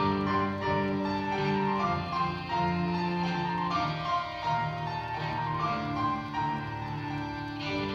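Violin and piano duet: the violin is bowed in long held notes over the piano accompaniment.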